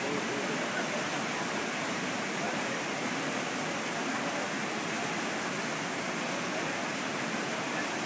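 Rushing river water pouring between boulders, a steady, even noise of white water.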